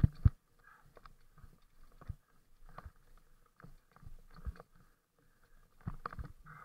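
Muffled knocks and rattles of a bike-mounted camera in its housing as the bike jolts over a rough dirt trail. Two loud thumps come right at the start and a cluster comes about six seconds in. No engine is heard.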